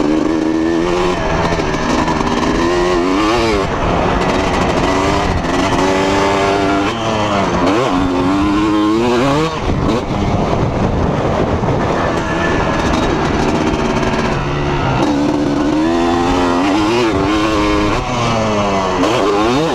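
2006 Kawasaki KX250 two-stroke single-cylinder motocross engine, freshly rebuilt, revving hard under riding load. Its pitch climbs steeply and then drops again and again as the rider accelerates, shifts and backs off.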